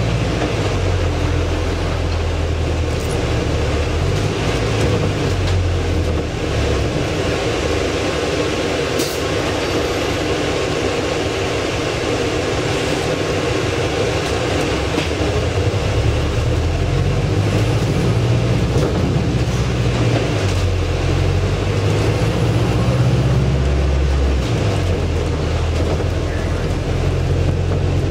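Inside a Volvo B5LH hybrid double-decker bus on the move: the drivetrain's low drone rises and falls in pitch as the bus speeds up and slows, over steady road noise.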